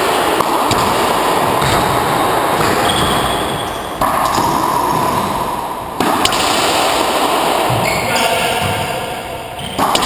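Racquetball rally in an enclosed court: sharp cracks of the ball off racquets and walls, several times, each followed by a loud echoing wash of reverberation.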